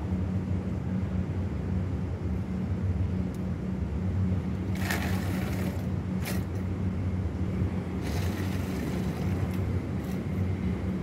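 Steady low mechanical hum of running machinery, like an engine idling, with short bursts of hiss about five seconds in, just after six seconds, and again around eight seconds.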